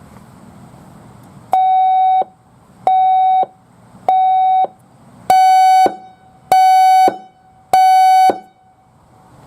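ACA Alertronic AL-100 electronic siren sounding six short beeps at one steady pitch, about one every 1.2 seconds. The first three are thinner in tone; the last three are harsher and slightly louder.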